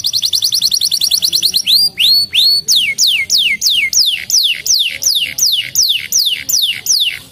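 Domestic canary singing: a fast, high rolling trill, then a run of repeated whistled notes, each sliding downward, about two to three a second, that stops abruptly near the end.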